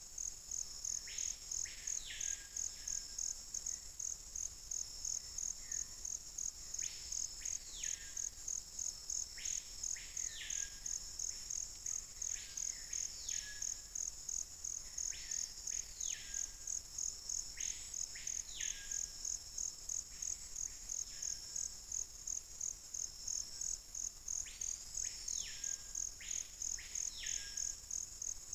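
A steady, high-pitched insect call pulsing fast without a break, over which a bird gives clear whistled notes that rise sharply and slide back down, often two in quick succession, repeated every few seconds.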